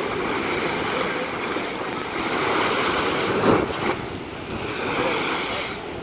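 Sea waves breaking against a stone seawall and washing along it as foaming surf, a continuous rush that swells to its loudest surge about halfway through.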